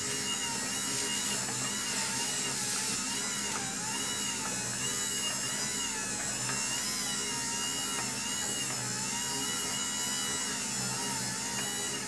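Car windshield-wiper motor driving the beater of a homemade churros-dough mixer through thick dough: a steady electric whine that wavers in pitch about once a second.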